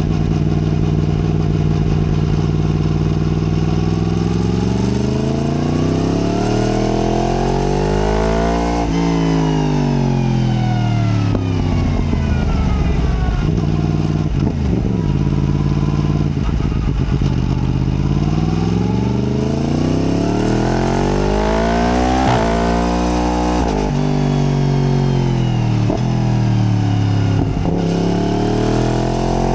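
Yamaha MT-10's crossplane inline-four engine under way, revs climbing hard twice and falling back between, with short sharp cracks as it slows.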